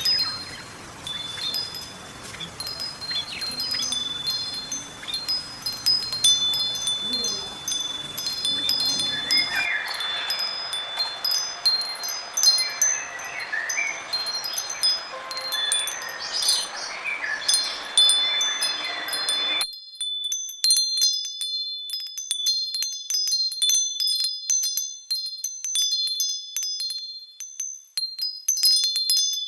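Wind chimes ringing: several high notes chime and hang on, overlapping one another. About two-thirds of the way in the background hiss cuts off suddenly, leaving only the chimes and faint ticks.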